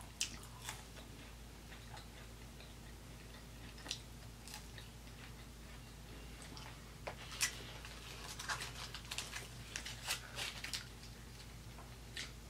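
Close-up mouth sounds of a person chewing fries, with scattered small clicks. In the second half a dense run of crackling clicks comes as the foil-wrapped burger is handled and bitten.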